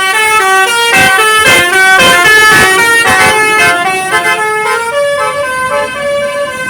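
Bus telolet horn (a Basuri multi-tone air horn) playing a quick melody that starts abruptly, its notes stepping up and down several times a second. After about five seconds it settles into longer held notes.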